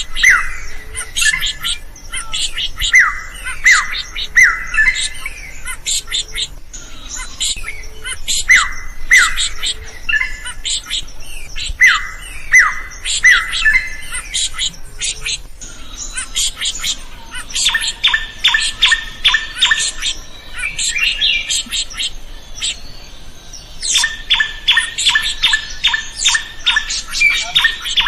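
Drongo (srigunting) singing: short whistled notes that slide down in pitch, mixed with sharp clicking notes. About halfway through it switches to a fast, even run of repeated notes, breaks off for a couple of seconds, then starts the run again near the end.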